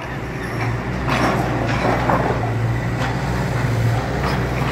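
Construction machinery running at a street work site: a steady low engine drone with irregular clatter on top.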